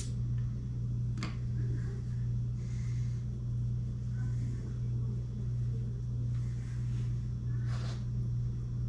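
A steady low hum, with a few faint light clicks and taps as main bearing shells are handled and set into the engine block.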